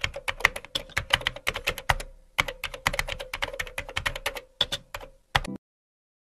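Fast typing on a computer keyboard: quick, irregular clicks of keystrokes, several a second, with brief pauses, stopping about five and a half seconds in.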